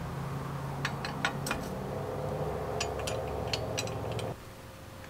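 Light metallic clicks and clinks of small crankset parts being handled and fitted on a bicycle crank, about a dozen scattered ticks. A steady low hum runs underneath and cuts off suddenly about four seconds in.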